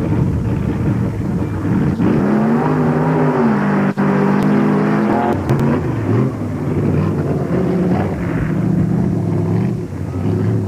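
Engine of an open tube-frame off-road drag buggy revving hard as it runs down a dirt track, its pitch climbing and dropping, then holding and wavering.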